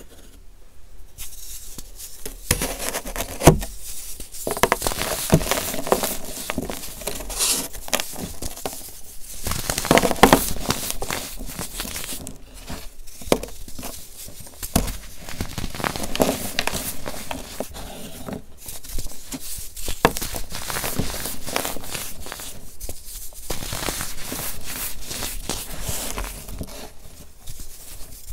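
Hands crushing and snapping dried baking-soda blocks moulded in soap cases: dry crunching and crumbling with sharp cracks as pieces break off, starting about two seconds in.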